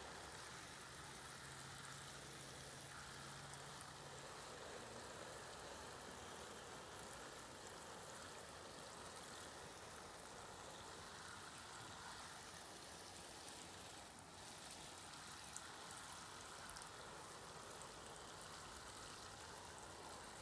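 Watering can with a rose head showering water onto a tray of lettuce seedlings in pots of soil: a faint, steady patter of falling water.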